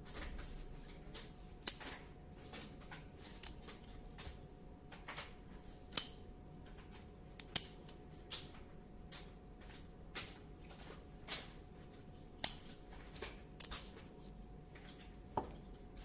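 Irregular light clicks and taps from a metal fingerprint padlock being handled, fingers touching its sensor and its shackle and body clicking in the hands, about twenty in all with a few sharper ones.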